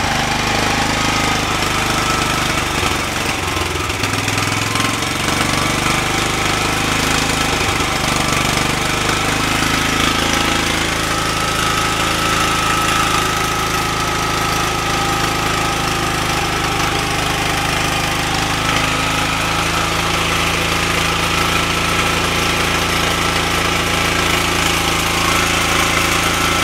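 Small engine running steadily on a homemade electronic fuel injection system, its injector pulsed open loop by a 555 timer triggered off the magneto. Its note shifts slightly about eleven seconds in.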